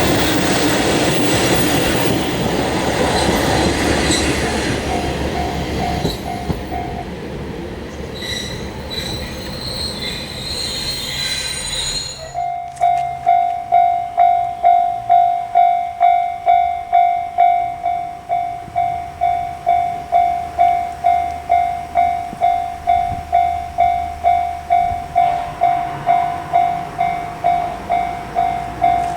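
A train running past a Japanese level crossing, its noise fading over the first several seconds, with a faint wheel squeal. About twelve seconds in the sound changes abruptly to the crossing's warning bell ringing steadily, one clear "kan" about 1.7 times a second.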